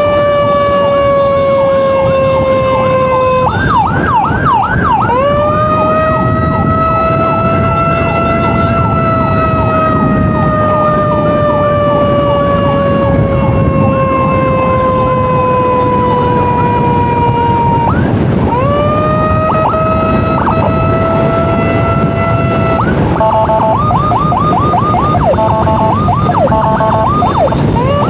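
Electronic emergency siren cycling through its modes: long slow wails that sink in pitch, bursts of quick rising yelps a few seconds in and again midway, and a rapid pulsing two-tone chirp near the end. Under it runs the steady road noise of a moving motorcycle.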